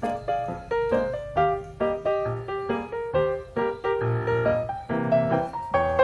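Background piano music: a steady run of notes, about three a second, each struck and fading.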